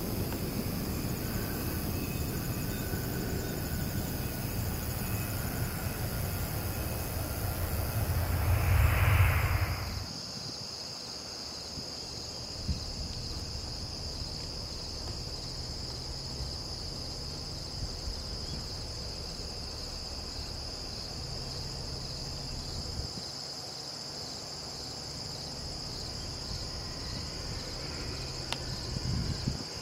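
A Mitsubishi CRJ-900 regional jet touches down and rolls out on the runway, its engine noise swelling to its loudest about nine seconds in, then cutting off abruptly. After that, insects chirr steadily, with a faint low rumble from a distant small jet.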